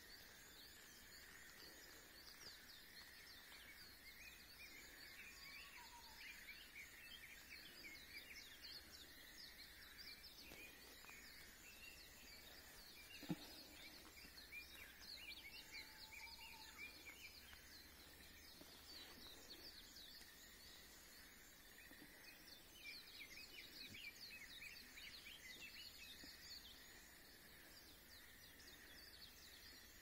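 Faint chorus of birds singing, with many rapid chirps overlapping all through, two short lower whistled notes, and a single sharp click about 13 seconds in.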